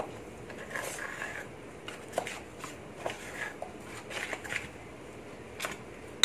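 Metal spoon stirring a thick flour-and-water batter in a stainless steel bowl: irregular scraping and clinking against the bowl, a few clinks ringing briefly.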